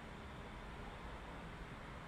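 Steady faint hiss with a low rumble underneath, unchanging, with no distinct sound event.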